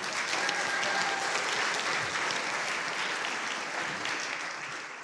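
Audience applauding, the clapping strongest in the first couple of seconds and slowly dying away toward the end.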